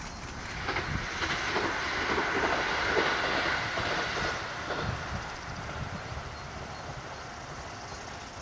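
Rapid Mie train passing on the Ise Railway: wheels clatter over the rail joints under a rushing hiss. The sound swells to a peak about three seconds in, then fades.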